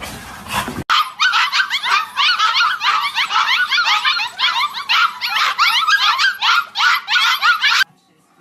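A litter of young puppies yipping and whining all together: many short, high-pitched cries, each falling in pitch, overlapping in a steady chorus that cuts off abruptly near the end.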